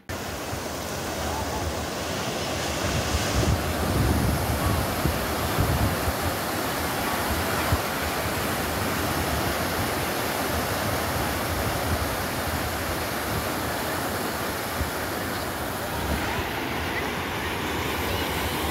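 Ocean surf breaking and washing onto a sandy beach, a steady rush, with wind rumbling on the microphone.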